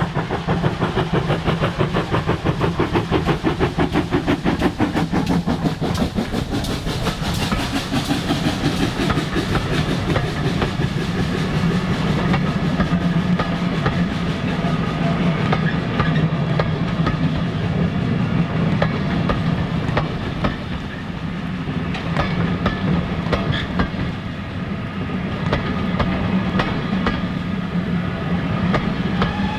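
Steam train passing at speed: a fast, even rhythm of beats for the first ten seconds or so, then the carriages rolling by with a steady rumble and some ringing wheel tones.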